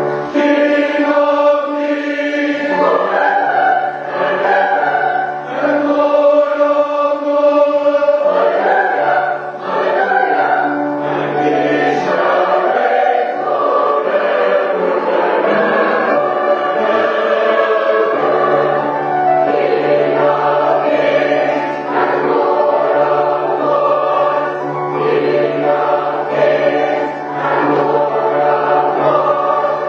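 Choir singing sacred music in slow, sustained chords that change every second or two. A low note is held underneath through the second half.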